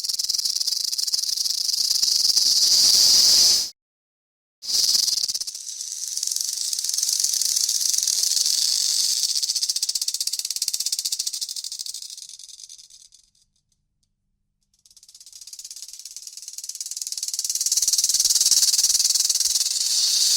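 Rattlesnake buzzing its tail rattle in a fast, continuous, high-pitched buzz. It cuts off abruptly about four seconds in and resumes a second later, then fades away around thirteen seconds in and builds back up a couple of seconds later.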